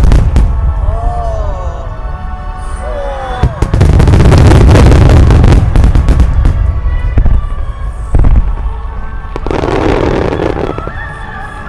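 Fireworks going off: a long stretch of dense crackling a few seconds in, sharp bangs near the middle and another crackling burst near the end, over background music.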